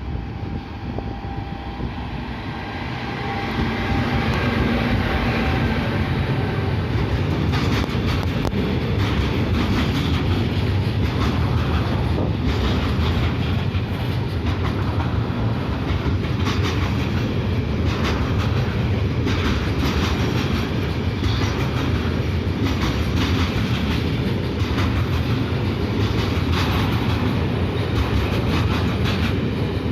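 Electric-hauled freight train passing close by, getting louder over the first few seconds and then a steady heavy rumble with the clatter of wagon wheels over rail joints.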